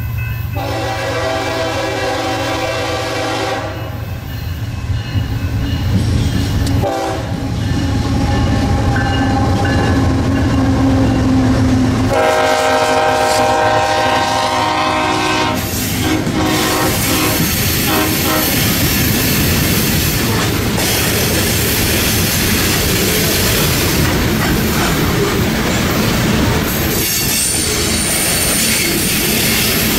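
Horn of a BNSF GE ES44C4 freight locomotive sounding several long blasts as the train nears a grade crossing, over the low rumble of the diesel engines. After the locomotives pass, loaded iron-ore hopper cars roll by with a steady, loud clatter of steel wheels on the rails.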